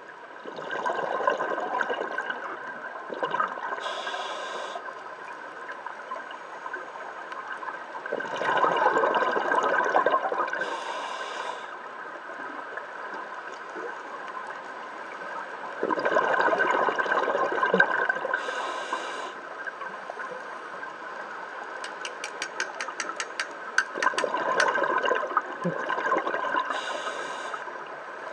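Scuba diver breathing through a regulator underwater: a short hissing inhale through the demand valve and a longer bubbling rush of exhaled bubbles, repeating about every eight seconds, over a steady faint hum. A run of rapid clicks comes a few seconds before the end.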